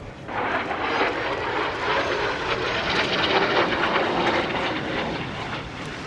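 Jet aircraft flying low past at speed: a loud rushing roar that starts abruptly, swells to its loudest around the middle and eases off near the end.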